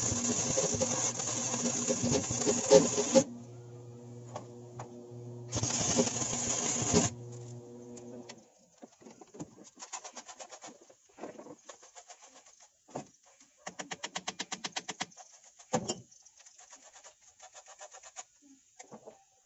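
Electric arc welding on a broken engine-bracket bolt: two bursts of loud, steady arc crackle over the welder's hum, which stops about eight seconds in. After that comes a hand spray bottle squirting water onto the hot weld, with quick pumps of the trigger and scattered light clicks.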